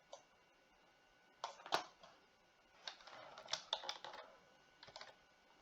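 Faint clicking of a computer mouse and keyboard, coming in small clusters with short pauses between them.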